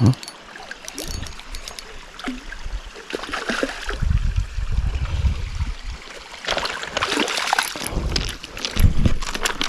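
Creek water splashing and running while a small brown trout is played and landed, with scattered short knocks and clicks.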